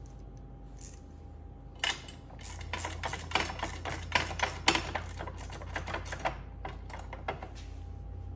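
Ratcheting torque wrench clicking in quick runs of back-and-forth strokes as a brake caliper slide pin is tightened down, starting about two seconds in and thinning out near the end.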